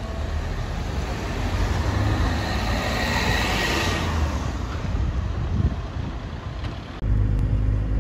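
A car drives past close by, its engine and tyre noise swelling to a peak about three to four seconds in and then fading. About seven seconds in the sound cuts abruptly to the steady low rumble of a car heard from inside while driving.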